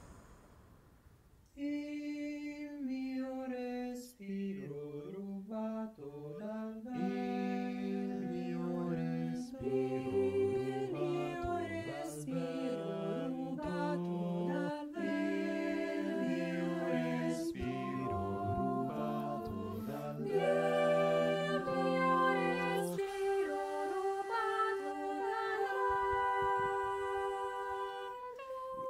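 Mixed-voice choir singing a cappella, entering about a second and a half in after a brief hush, with held chords over moving lower voices.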